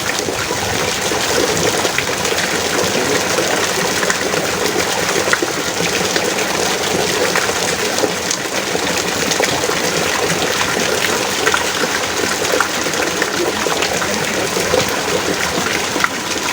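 Heavy rain falling steadily: a dense, even hiss with scattered sharper drop hits.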